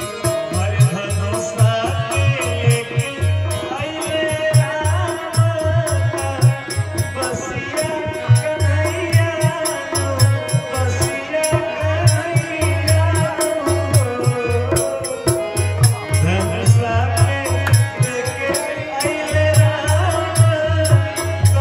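Man singing a Hindi devotional folk song to his own harmonium, backed by a steady low hand-drum beat and quick clicking percussion.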